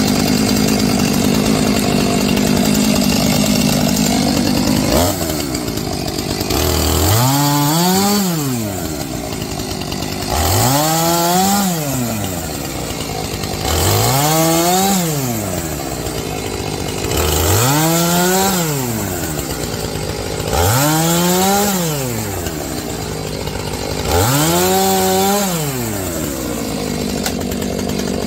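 Gas chainsaw idling, then revved up and let back down six times at even intervals, each rev rising in pitch to a peak and falling away over about two seconds.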